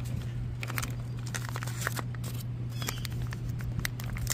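Small paper wrapper of a toy blind packet crinkling and being torn open in the hands: a scattering of short crackles and clicks, over a steady low hum.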